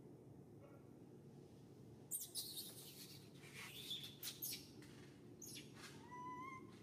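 Faint crackling and rustling of leaves and branches as macaques climb through a tree, starting about two seconds in. Near the end comes a short high-pitched chirping call.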